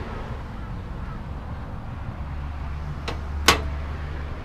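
Two sharp metal knocks about half a second apart, the second much louder, from the steel compressor box under the ute's tray being handled, over a low steady hum that grows heavier about halfway through.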